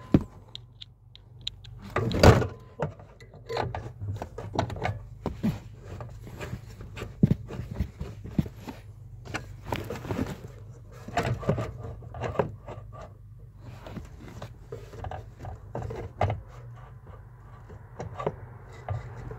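Scattered clicks, knocks and rattles of a metal ECU case and a cordless screwdriver being handled while the unit is fitted in place, with one louder knock about two seconds in, over a faint low hum.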